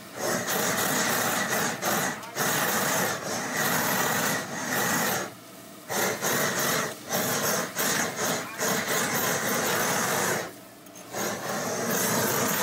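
Handheld gas blowtorch flame hissing steadily as it sears cubes of beef on a wire grill. The flame sound drops out briefly about five seconds in and again about ten seconds in, then comes back.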